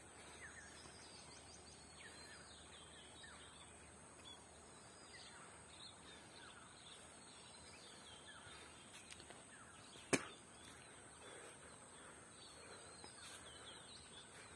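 Faint countryside ambience: birds give short, falling chirps again and again over a steady high-pitched drone. One sharp click about ten seconds in.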